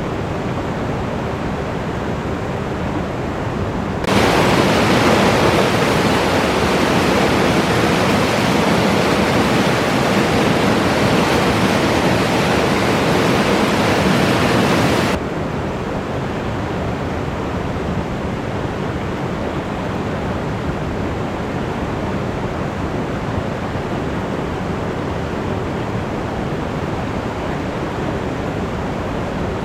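Alpine river rushing over rocks, a steady, even roar of water. About four seconds in it abruptly turns louder and hissier for some eleven seconds, then drops back just as suddenly to the earlier level.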